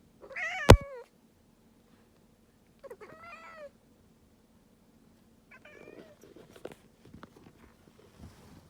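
Domestic cat giving an unusual meow three times, each call wavering in pitch, the first and longest lasting under a second. A sharp click sounds during the first call.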